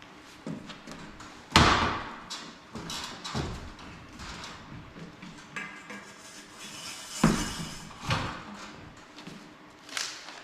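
Plastic trim and wiring covers being handled and fitted onto a ceiling fan's mounting bracket: two sharp knocks, one about a second and a half in and one about seven seconds in, with lighter clicks and rustling between them.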